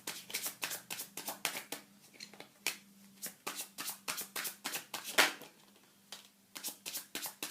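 Tarot cards being shuffled by hand: a quick run of crisp card clicks and slaps, several a second, pausing briefly twice.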